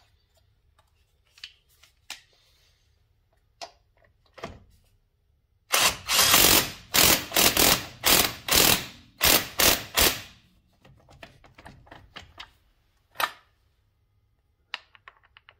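Cordless impact wrench hammering a lug nut back onto a truck wheel in a run of about six short, loud bursts over roughly four seconds. Light clicks of the nut and socket being handled come before and after.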